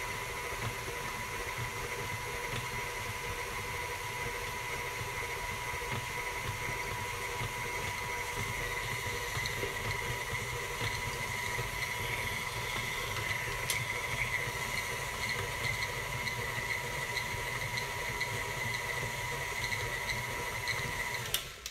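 KitchenAid stand mixer's motor running steadily with a whine, its paddle beating a stiff butter, cheese and flour dough in the steel bowl; it is switched off just before the end.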